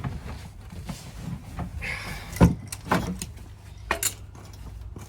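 Tools and metal parts handled during motorcycle front-end work: a scatter of light clinks and knocks, the sharpest about two and a half seconds in, with a brief scraping hiss just before it.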